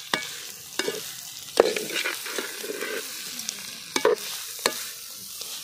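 A metal ladle stirs and scrapes goat tripe and drumstick flowers frying in a metal pot, over a steady sizzle. The ladle knocks and scrapes against the pot about five times, as the mixture is sautéed dry.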